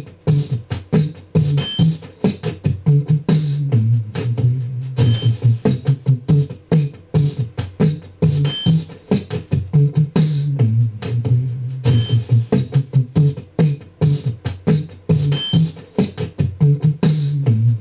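Beatboxed beat through a microphone: fast clicks and hisses over a low pulsing bass hum, in a pattern that repeats.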